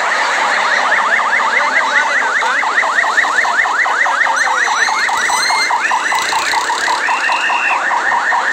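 An electronic alarm sounding a fast, steadily repeating pitch sweep, about five sweeps a second, over street noise. Past the middle a higher tone rises and falls twice.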